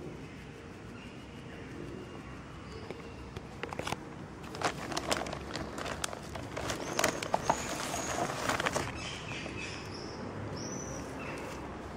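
Rustling and crackling in grass and leaves for several seconds in the middle, with a few short, high bird chirps in the background.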